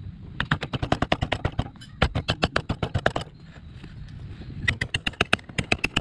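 Hammer tapping a greased bushing into a rack-and-pinion mount, in three quick bursts of sharp strikes, several a second.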